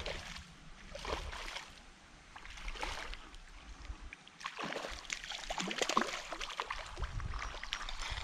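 Creek water splashing and sloshing: a few short splashes, then a longer stretch of busier sloshing from about halfway through.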